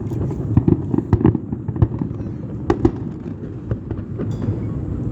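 Aerial fireworks bursting: an irregular run of sharp bangs and crackles, thickest in the first three seconds, over a steady low rumble.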